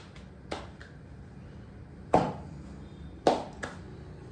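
Roti dough being patted flat between the palms, a couple of soft slaps, followed by two louder knocks about a second apart.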